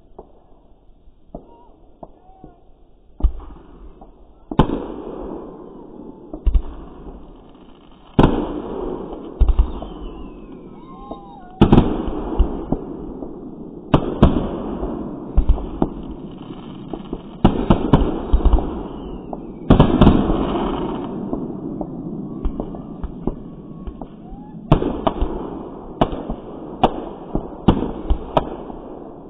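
Aerial fireworks going off in a rapid series: sharp bangs, each followed by a long rumbling echo, with crackle between. A few small pops at first, then near-constant bursts from about three seconds in.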